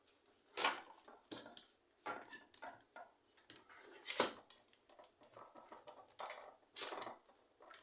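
Light clicks and knocks of metal parts being handled as an electric fan motor's rotor is fitted back into its housing and freshly oiled bushings, with one sharper knock about four seconds in.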